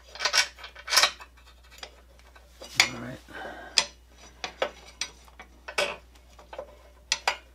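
Irregular light metallic clinks and clicks, about ten in all, as brake pads are worked into the front brake caliper of a Yamaha V-Star 1300.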